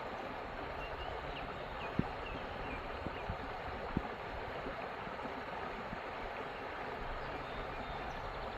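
Creek water running and gurgling steadily, with a few sharp little knocks about two and four seconds in.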